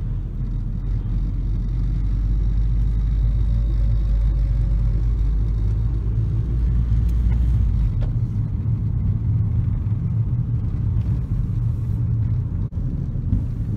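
Steady low rumble of road and engine noise heard inside a Toyota Camry being driven. The deepest part of the rumble eases about eight seconds in.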